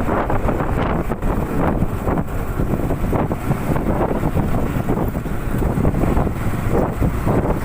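Wind buffeting the microphone of a moving Honda CB150R motorcycle, a steady fluttering rush, with the bike's single-cylinder engine and road noise underneath.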